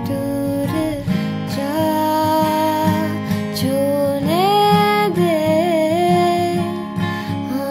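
Background music: a woman singing a cover song over strummed acoustic guitar, with long held vocal notes that glide between pitches.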